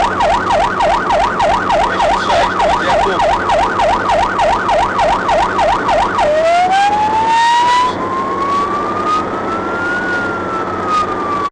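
Emergency vehicle siren on an emergency run, heard from inside the vehicle over engine and road hum. It sounds a fast yelp of about three or four sweeps a second, then about six seconds in switches to a slow wail that climbs and begins to fall.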